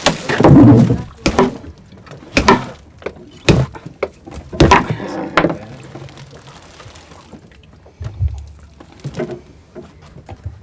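Sharp knocks and thumps on a fishing boat's deck as a freshly landed conger eel is handled and unhooked, irregular and about a second apart, dying down after about six seconds with one more knock near the end.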